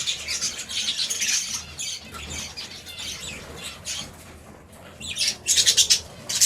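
A flock of budgerigars chattering and squawking in quick, high calls, quieter for a moment past the middle, then a louder rapid run of calls near the end.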